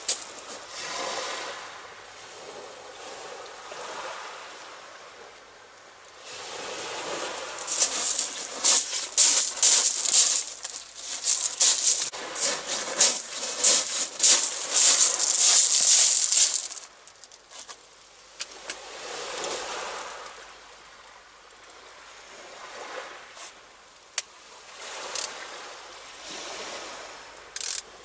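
Surf washing on the shore: a noisy hiss of water that swells loud for about ten seconds in the middle, then falls back to a quieter wash.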